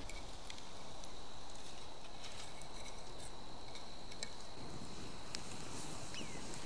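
Outdoor ambience with a steady high insect drone, broken by a few light clicks and knocks as pieces of split wood are laid on the salt-covered pan, and a short falling chirp near the end.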